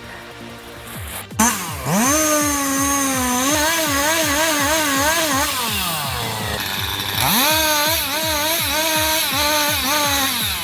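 Chainsaw running at full throttle in two bursts, its high pitch wobbling quickly up and down as it cuts, then dropping back to a lower note between and after the cuts.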